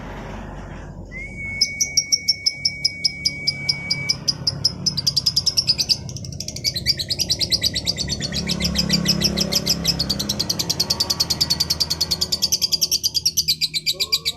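Female lovebird calling: sharp, high chirps that start a little over a second in and quicken into a fast, continuous chatter. A steady high whistle tone holds for a few seconds near the start.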